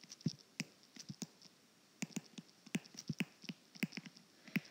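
Stylus tip tapping and clicking on an iPad's glass screen during handwriting: irregular sharp clicks, several a second, with a brief pause about one and a half seconds in.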